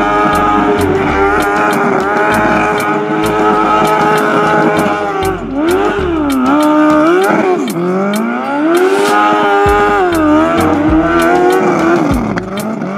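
Suzuki GSX-R 750 inline-four motorcycle engine in a go-kart, held at high revs while the rear tyres spin through burnout donuts. Its pitch dips and climbs back a couple of times around the middle, and falls away near the end.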